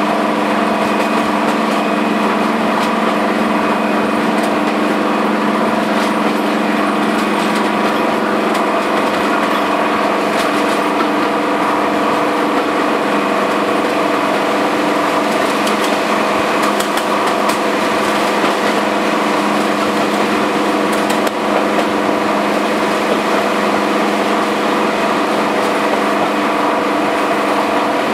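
Class 55 Deltic locomotive's Napier Deltic two-stroke opposed-piston diesel running steadily under power, with only one of its two engines working, heard from the train behind it. Its many-toned engine drone holds a constant pitch and level throughout, with a brief small drop about 21 seconds in.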